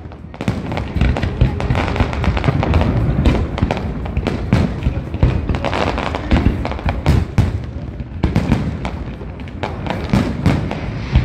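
Fireworks display: a dense, continuous run of bangs and crackles from bursting shells, several a second, with low booms among them.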